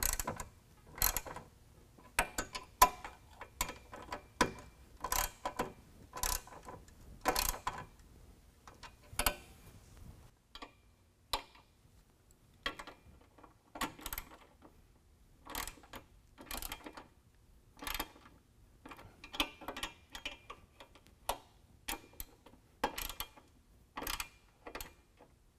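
Socket ratchet clicking in short runs, roughly one run a second, as a 13 mm socket tightens the door-pin bolts.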